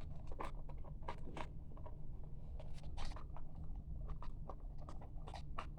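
Irregular small plastic clicks and scrapes of hands working the cap of a toy bubble camera, trying to snap it closed.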